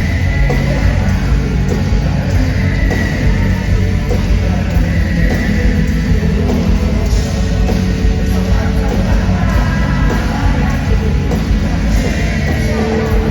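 Rock band playing live, loud and steady.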